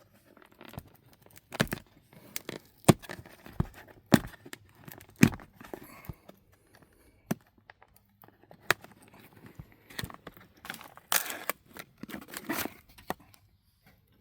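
Cardboard firework boxes being handled and torn open: scattered sharp knocks and taps, with longer bursts of tearing and crinkling about eleven and twelve seconds in.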